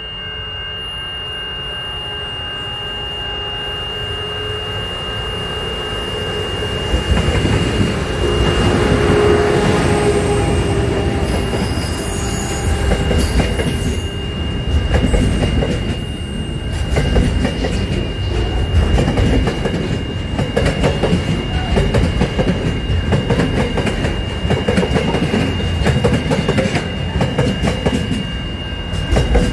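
Container freight train approaching, growing louder over the first several seconds, then its wagons rolling past with the wheels rumbling and clacking unevenly on the rails. A steady high-pitched tone sounds throughout.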